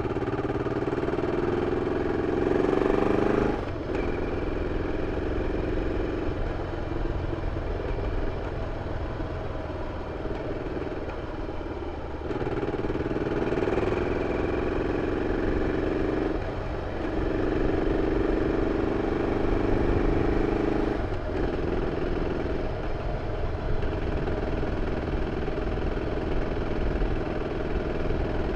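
BMW F 650 CS motorcycle's single-cylinder engine running through its original exhaust, held at a fairly steady note. The note drops briefly four times and picks up again.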